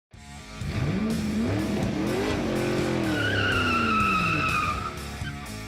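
Car engine revving, its pitch climbing and then falling away, with a high tire squeal in the middle.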